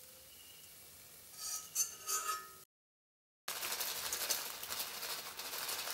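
Steel wire spider strainer clinking a few times against an iron kadai. After a brief cut, hot frying oil sizzles and crackles loudly.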